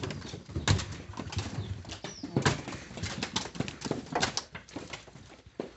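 Cassava roots being thrown onto a pile, a run of irregular knocks and thuds as the roots hit one another.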